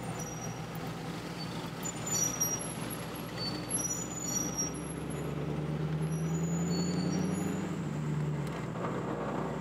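Car engine running, heard from inside the cabin: a steady low hum that rises in pitch for a few seconds in the second half, then drops back. Short high chirps sound faintly above it.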